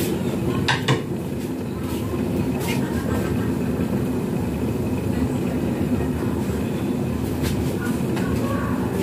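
Ginataang langka (jackfruit in coconut milk) boiling in a covered electric pot: a steady low rumble with a few light clicks.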